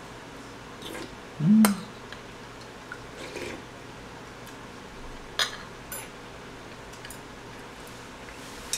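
Eating at the table: a spoon and chopsticks clicking against bowls and plates, with soft mouth sounds of eating. A short hum of voice comes about a second and a half in.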